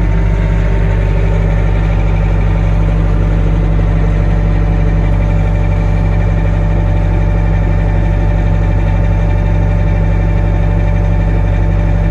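Bobcat engine idling steadily, just after catching on a restart attempt.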